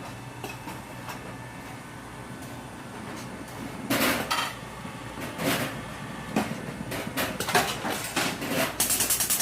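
Cherry tomato automatic packing machine running: a low hum with light clicks, then loud irregular clattering knocks starting about four seconds in, settling near the end into a rapid, regular clacking.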